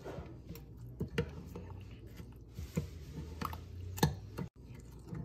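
Metal spoon stirring rice batter with grated vegetables in a glass bowl: wet squelching broken by several sharp clinks of the spoon against the glass.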